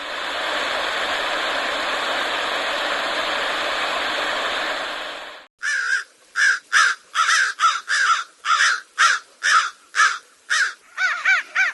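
Steady radio static hiss for about five and a half seconds, cutting off abruptly. Then a crow caws over and over, about two to three harsh caws a second.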